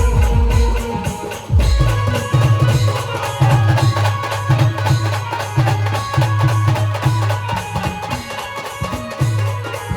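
Indian brass band playing a folk song, with brass carrying the tune over steady, busy drumming. A deep repeating bass part comes in about a second and a half in.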